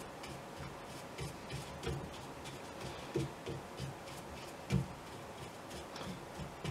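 Faint, irregular taps and soft thumps of a broad flat brush dabbing paint onto a stretched canvas in short strokes, with light scratching of the bristles.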